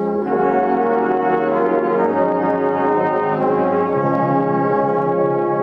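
A wind band of brass and saxophones playing slow, held chords that change every second or so.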